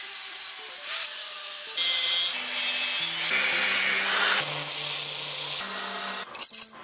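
Angle grinder with a sanding disc grinding a steel knife blade: a steady, harsh hiss of abrasive on metal that cuts off suddenly near the end.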